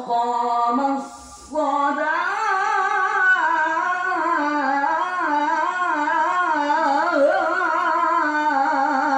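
A man reciting the Quran in the melodic chanted style (tilawah), amplified through a microphone. A short phrase, a breath about a second in, then one long phrase with a wavering, ornamented melody.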